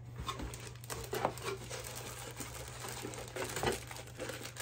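Packaged items being handled by hand: plastic wrapping rustling and crinkling with light, irregular taps and knocks, over a steady low hum.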